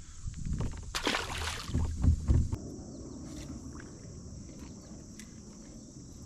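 Knocks and bumps on a kayak hull, with a short splash of water about a second in, then a steady low rush.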